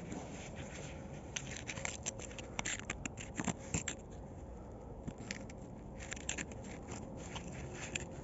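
A small steel pick scraping and clicking against the metal inside a JCB hydraulic cylinder's gland while an old, brittle oil seal is picked out of its groove. The clicks and scrapes come irregularly and are thickest around the middle.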